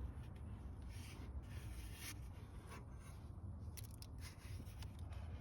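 Faint scraping, rubbing and scattered light clicks of car parts being handled by hand during a radiator removal, over a low steady rumble.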